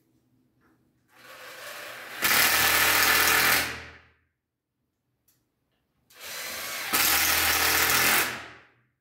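Cordless drill-driver run twice, each time starting slowly and then speeding up to full speed for about a second and a half before stopping.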